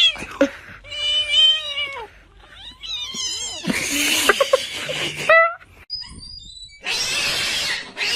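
Domestic cats yowling: a series of long, drawn-out meows about a second each, followed by rougher, noisier cries and a hiss-like rush of noise near the end.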